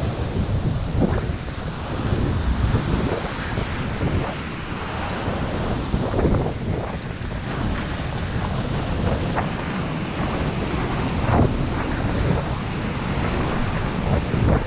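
Ocean surf washing up a sandy beach, with heavy wind buffeting the microphone.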